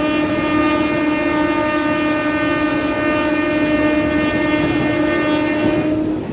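A train horn sounding one long, steady blast over the rumble of a moving train. The horn cuts off about six seconds in.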